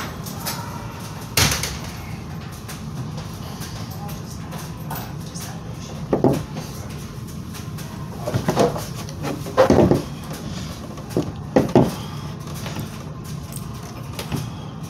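Steady low hum with a sharp knock about a second and a half in, then a few short thumps in the middle as hands and feet meet a wooden plank floor.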